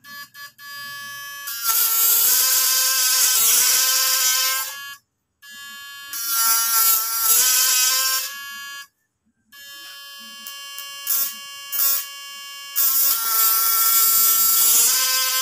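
Homemade fish-shocker inverter, D718 transistors driving a step-up transformer, running under load: a steady high-pitched buzzing whine with a harsh crackling hiss as its output leads arc. It comes in four bursts separated by brief silences, loudest in the first and last.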